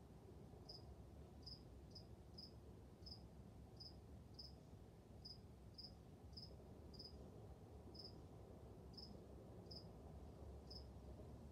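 A cricket chirping faintly: short, high single chirps, unevenly spaced at a little more than one a second, over quiet room hum.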